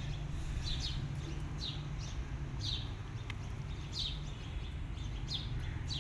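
A bird calling outdoors: short, high chirps that fall in pitch, repeated about once a second, over a steady low background rumble.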